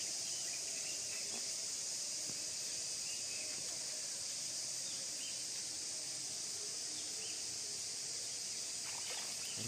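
Steady, high-pitched insect chorus ringing without a break.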